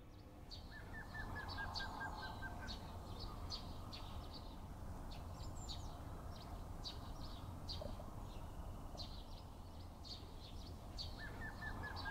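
Several small birds chirping, with a fast run of about a dozen evenly spaced notes, falling slightly in pitch, heard twice: near the start and again near the end. A steady low rumble sits underneath.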